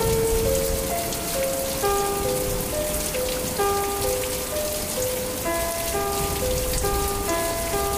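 Heavy rain pouring steadily, splashing onto grass and running off a roof edge. A slow, gentle melody of single held notes plays softly over it.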